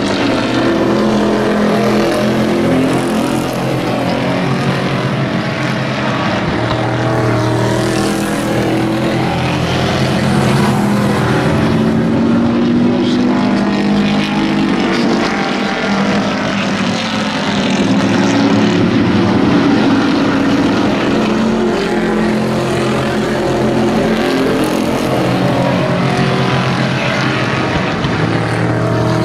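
A pack of racing pickup trucks running hard around an oval track: many engines at once, their pitch rising and falling, swelling a few times as the pack passes by.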